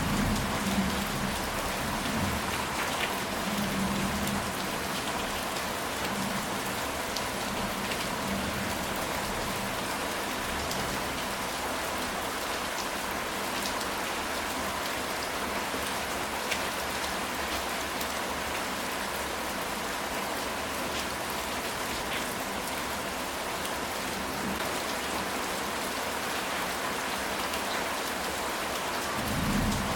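Steady rain falling on a ceramic tile roof, a dense even hiss with individual drops ticking on the tiles.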